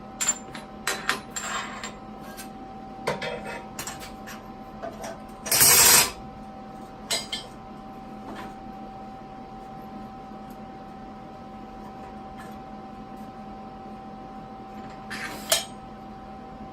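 Steel pieces clinking and clanking as metal spacers and clamps are handled and set under a frame, a flurry of sharp clinks at the start and a few more later. About five and a half seconds in comes one loud, noisy burst lasting about half a second, over a steady faint hum.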